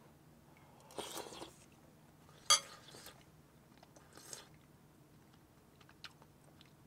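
Quiet eating sounds of a man taking a spoonful of beef and rice soup: a short slurp about a second in, a sharp spoon clink about two and a half seconds in, and faint chewing.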